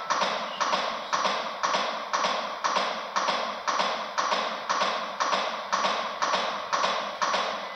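Chest compressions on a CPR training manikin: a steady run of sharp taps, about two a second, one with each push.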